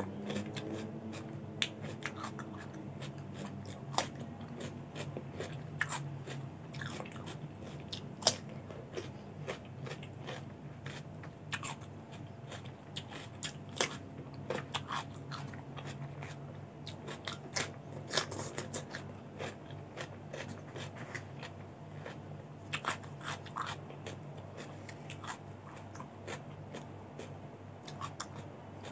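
Close-miked mouth chewing and biting of raw vegetables and leafy greens: irregular crisp crunches and wet clicks, a few sharper than the rest.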